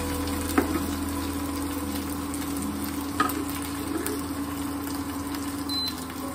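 Chopped onion and ginger-garlic paste sizzling in oil in a nonstick pan while being stirred with a spoon, with a steady low hum underneath. The spoon knocks sharply against the pan twice, about half a second in and about three seconds in.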